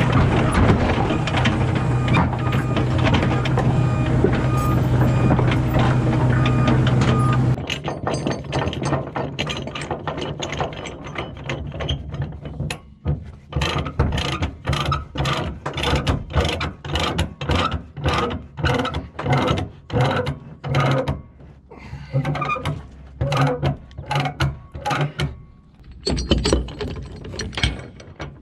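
Dump truck's diesel engine idling steadily. About seven seconds in it gives way to a ratchet load binder being cranked to tighten a tie-down chain, clicking about twice a second in runs with short pauses.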